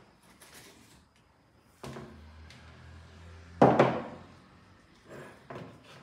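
A few dull knocks of a kitchen flour sieve against a plastic mixing bowl while flour is sifted. The loudest knock comes a little past halfway, with softer ones about two seconds in and near the end.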